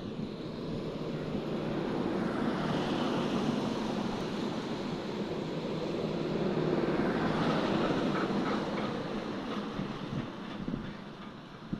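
A vehicle passing by, heard as a steady noise that builds over the first couple of seconds, holds, and fades from about ten seconds in. There is a short click near the end.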